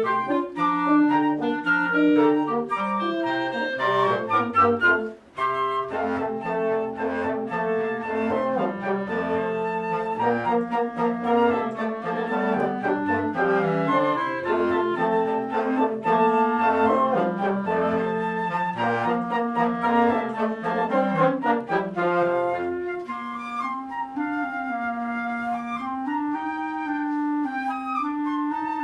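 Military band music with woodwinds to the fore. There is a brief break about five seconds in, and after about 22 seconds the bass drops out, leaving a few held woodwind lines.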